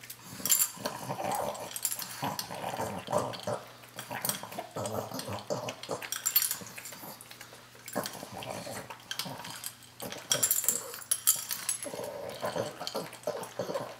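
A pug eating dry kibble from a bowl: crunching and clicking of the food, mixed with pig-like grunting and snuffling through her short nose. There is a short break about eight seconds in.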